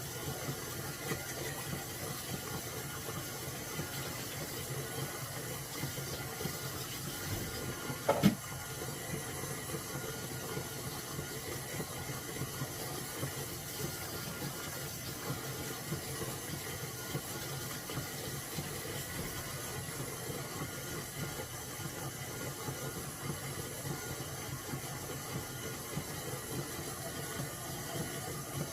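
Kitchen faucet running steadily into the sink while dishes are rinsed, with one sharp knock about eight seconds in.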